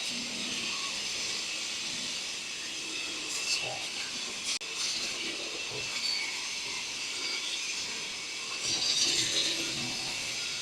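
BODA BLC-420 concrete saw, brushless motor, its blade cutting into a concrete floor: a steady hissing grind with a faint high whine, swelling briefly now and then.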